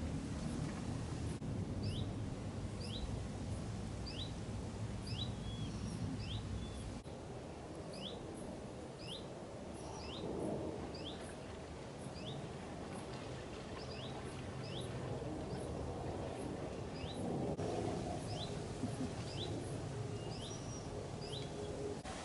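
A small bird calling over and over with short rising chirps, about one a second, over a low steady rumble.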